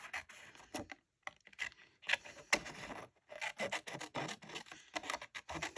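Craft paper being handled: crisp rubbing and scraping strokes, irregular in length, with brief pauses about a second in and about three seconds in.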